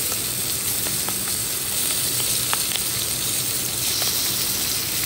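Shishito peppers blistering in olive oil in a very hot frying pan: a steady sizzle with a few sharp pops here and there.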